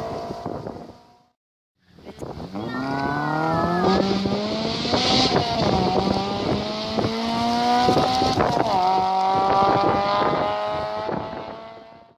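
Rally car engine accelerating hard on the approach, its pitch climbing through the gears with two upshifts, about four and nine seconds in. A short silent gap comes before it, about a second in.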